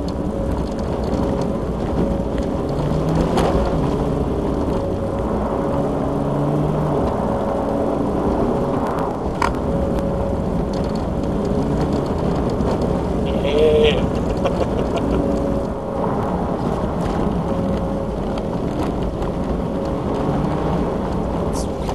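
Mitsubishi Lancer Evolution X engine and tyre noise heard inside the cabin while the car is driven on a snow-covered track, with a continuous rumble and an engine note that rises and falls. A short higher-pitched sound comes about two-thirds of the way through.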